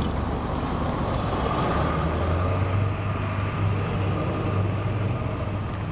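Motor vehicle on the road: a steady low engine drone under road and wind noise, the drone growing stronger about two seconds in.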